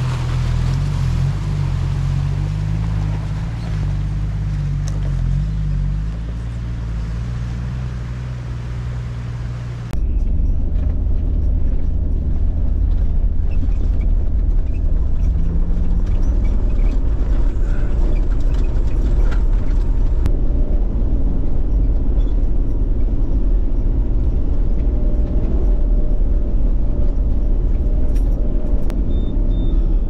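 Toyota LandCruiser Troop Carrier driving along a dirt track, with a steady engine note and road rumble. About ten seconds in the sound changes abruptly to a louder, duller rumble, which holds steady to the end.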